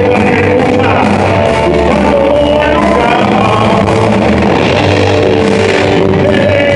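Rock band playing live: a male singer over electric guitars and a drum kit, loud and continuous.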